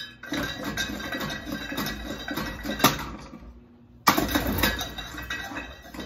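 Spinning ceiling fan blades striking a hammer held in their path, a rapid clattering rattle with one sharp crack about three seconds in. The clattering stops for about a second, then starts again loudly.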